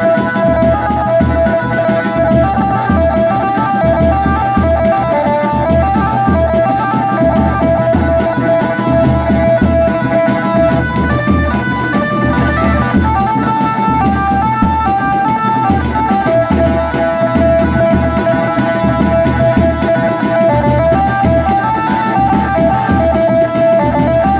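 Adivasi band baja music: a lead instrument plays a stepping melody of held notes over a steady, pounding drum beat.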